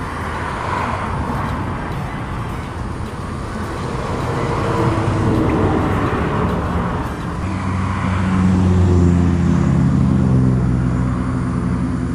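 Road traffic passing close by: vehicles go past one after another, swelling loudest about five and nine seconds in, the later one with a low engine drone.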